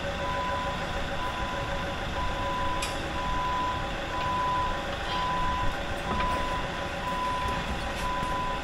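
Backup alarm beeping steadily, about once a second, over the rumble of a John Deere 700K dozer's diesel engine running as its sprocket winds the chained track up over the rollers.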